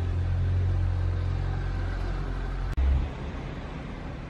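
Low, steady rumble of a motor vehicle engine running. It breaks off abruptly about two-thirds of the way in with a short, louder low thump, then goes on more quietly.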